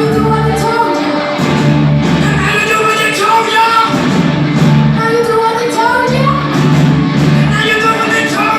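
Live rock band playing loudly, with a singer's voice over distorted guitars, bass and drums.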